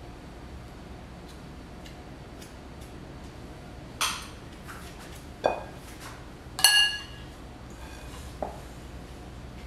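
Metal spoon knocking and scraping against a glass mixing bowl as flour-and-yogurt dough is cleared off it, then a loud ringing clink as the spoon is set into a ceramic bowl, followed by a small knock.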